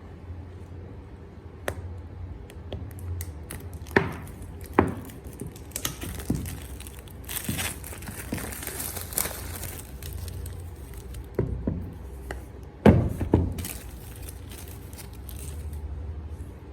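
Insta360 One X2 retail box and its packaging being opened by hand: plastic and cardboard crinkling and tearing, with a stretch of crackling in the middle and several sharp knocks as the box and its parts are handled.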